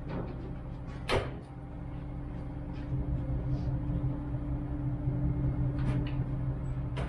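An engine running at a steady idle, its hum growing a little louder about three seconds in, with a sharp knock about a second in and a couple of lighter knocks near the end.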